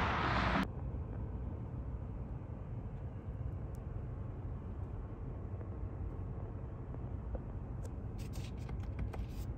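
Car noise from a 2024 BMW X6 M60i. A loud rush of acceleration cuts off abruptly just under a second in, leaving a low steady rumble, with a series of clicks near the end.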